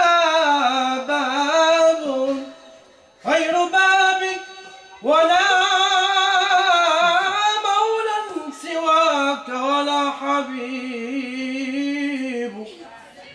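A man sings an Arabic Islamic nasheed solo and unaccompanied. It comes in three long, ornamented phrases with wavering held notes; the last phrase runs about seven seconds before fading near the end.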